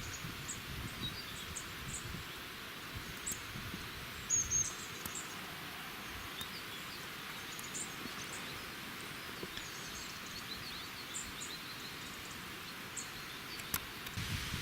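Small birds giving scattered short, high chirps, with one brief louder call about four seconds in, over a steady outdoor hiss.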